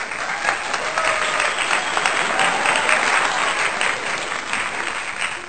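Applause: dense clapping that starts suddenly and eases off a little near the end.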